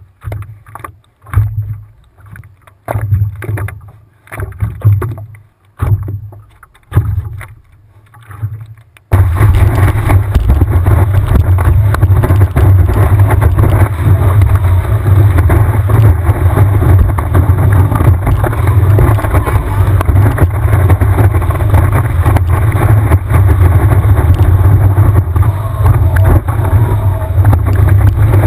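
Sloshing of water against a surfboard in surges about once a second, then an abrupt change about nine seconds in to a steady, loud rush of wind and whitewater buffeting a board-mounted camera's microphone as the board rides a wave.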